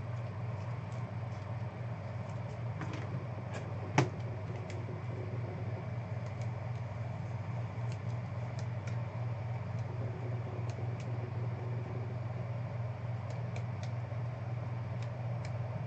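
Steady low hum of room ventilation, with scattered faint clicks and one sharper click about four seconds in.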